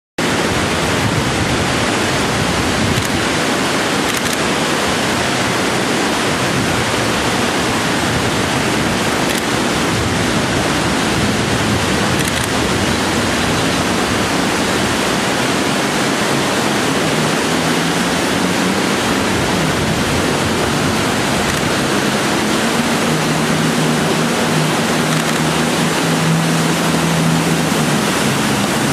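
River rapids rushing loudly and steadily. From about halfway through, the steady drone of a twin Yanmar diesel jet boat's engines grows in under the water noise, clearest near the end as the boat comes close.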